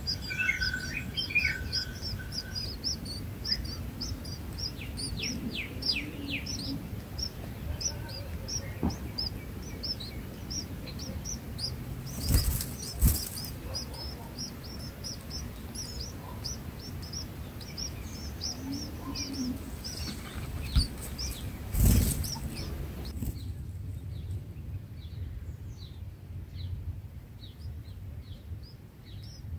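Red-whiskered bulbul nestlings begging with rapid, high-pitched chirps while a parent feeds them at the nest. Two pairs of loud wing-flapping flutters come about 12 and 21 seconds in, and the chirping grows faint about three-quarters of the way through.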